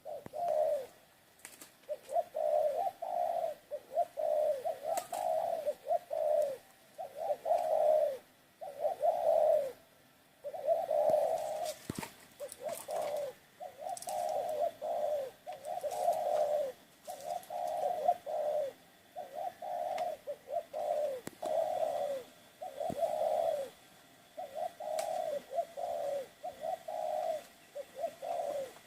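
Doves cooing over and over in short low phrases, one after another with brief pauses.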